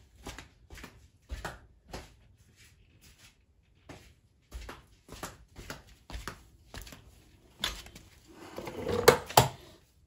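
Irregular light clicks and knocks of metal tools and parts being handled, with a busier clatter about eight seconds in.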